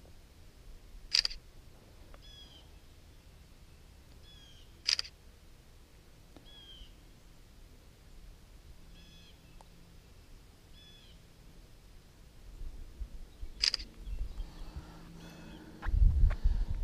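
Smartphone camera shutter sound, three clicks a few seconds apart as photos are taken. A bird gives a short chirp every couple of seconds in the background, and a low rumbling noise rises near the end.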